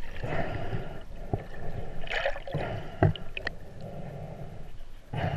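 Water heard from under the surface as a snorkeler swims: muffled rushing and gurgling in surges, with a few sharp knocks, the loudest about three seconds in.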